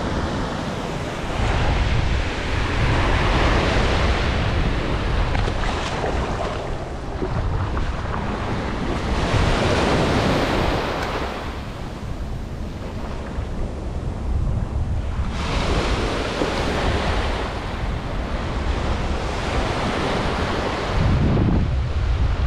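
Small ocean surf breaking and washing up the sand, swelling and fading in long washes every five or six seconds, over a steady low rumble of wind on the microphone.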